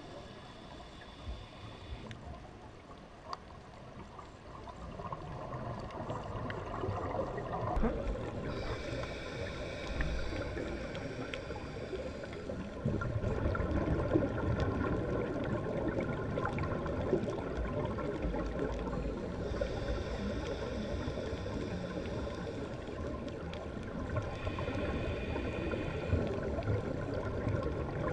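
Scuba diver's breathing heard underwater: a hiss through the regulator on each inhale alternating with low gurgling exhaled bubbles, a breath every several seconds.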